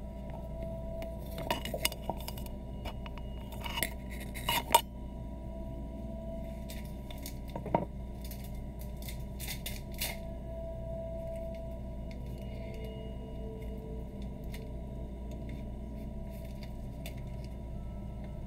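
A chef's knife and hands working a mushroom clump off its plastic-wrapped grow block on a wooden cutting board: scattered clicks and knocks, the sharpest about four to five seconds in, over a steady low hum.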